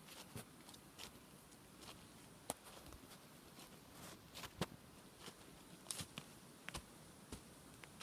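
Faint footsteps through fallen leaves on a forest path: soft crackles and rustles of leaves underfoot at an uneven pace of about one or two a second, over a faint steady hiss.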